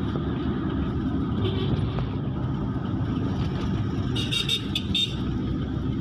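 Steady engine and tyre rumble of a car driving along a road. About four seconds in, a brief run of several sharp, high-pitched pulses sounds over it.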